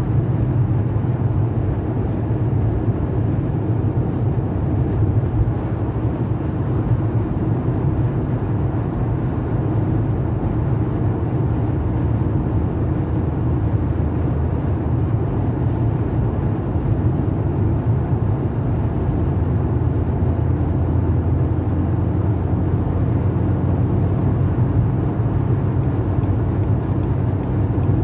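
Steady road, tyre and engine noise heard inside a car's cabin cruising at motorway speed: an even low drone.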